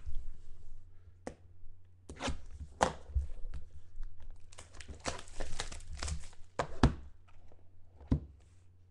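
Plastic shrink-wrap being torn and peeled off a sealed card box, in a string of crackling rips and crinkles that are densest about five to six seconds in.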